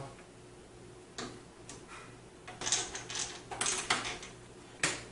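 Light clicks and rustling of power-supply cables and connectors being handled and routed inside a computer case, busiest in the middle, with one sharper click near the end.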